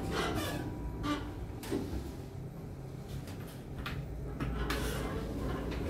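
Scattered soft clicks and knocks inside an Otis Gen2 lift car, the strongest about three-quarters of the way through, over a low steady hum.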